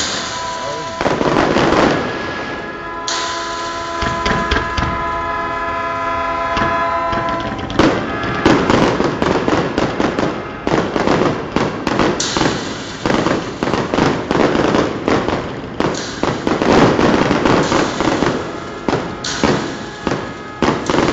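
Fireworks going off, a run of bangs that turns into a dense, rapid crackle of many small reports about a third of the way in. Before that, a steady pitched tone is held for about four seconds over the bangs.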